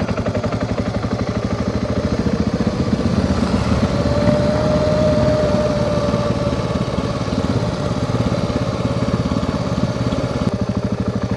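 Dual-sport motorcycle engine running steadily under way, an even, rapid pulsing with no revving up or down. A faint whine rises and fades in the middle.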